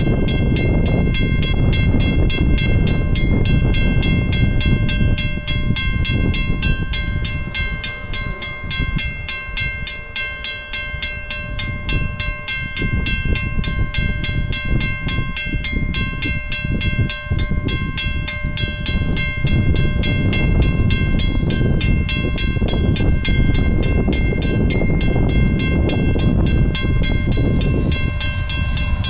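Level-crossing warning bell ringing in fast, even strokes, over a low rumble that swells toward the end as a Via Rail P42DC diesel locomotive draws near.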